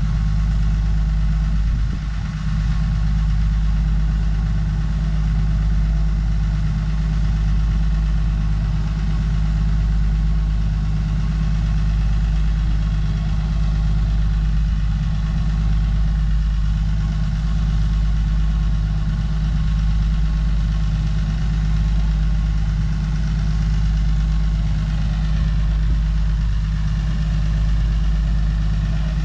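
Heavy-equipment engine idling steadily, a constant low engine drone with a brief dip about two seconds in.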